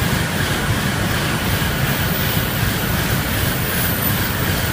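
Shinkansen bullet train passing a station platform at high speed: a loud, steady rushing noise that holds level as the train's length goes by.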